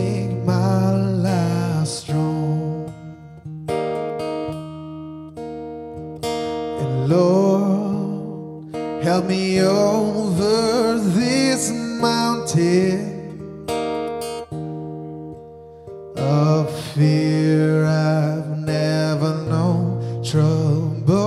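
Acoustic guitar strummed and picked in slow, held chords, with a man singing over it in phrases.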